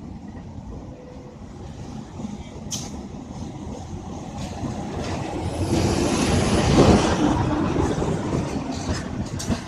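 Train rumble at the platform swelling to a peak about six to seven seconds in and then easing off, with a thin high squeal, typical of brakes, near the peak and a few sharp clicks.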